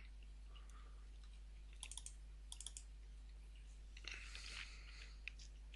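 Faint clicking of a computer mouse and keyboard, in two short clusters about two seconds in and a single click near the end, over a steady low mains hum.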